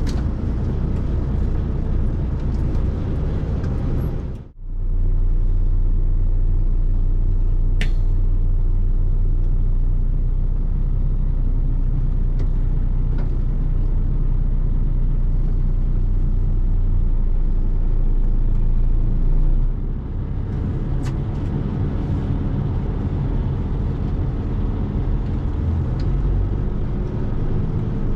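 Tatra Phoenix 6x6 truck's diesel engine running as it drives slowly across the field, a steady low drone heard from inside the cab. The sound drops out sharply for a moment about four seconds in, and there is a single small click a few seconds later.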